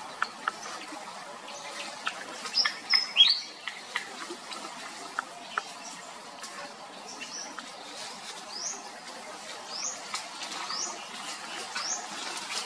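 A small bird chirping: a few loud high notes about two to three seconds in, then a run of short rising chirps about once a second in the second half. Scattered faint clicks and ticks sound in the first few seconds.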